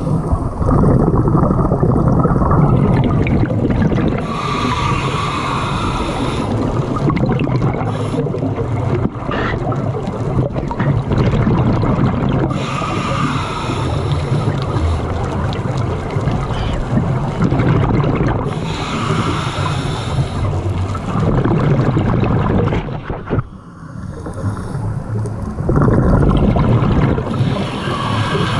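Scuba diver breathing through a regulator underwater: a hissing inhale about every seven seconds, each followed by a long rumble of exhaled bubbles.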